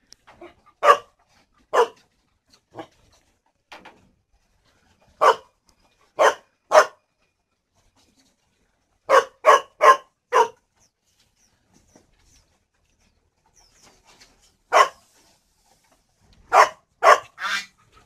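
A dog barking: about fourteen short, sharp barks, some single and some in quick runs of two to four, irregularly spaced.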